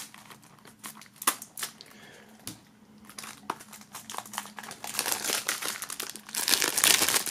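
Plastic shrink-wrap film being slit and peeled off a CD jewel case, crinkling and crackling. Scattered sharp ticks give way to denser, louder crinkling over the last two seconds as the film is pulled away.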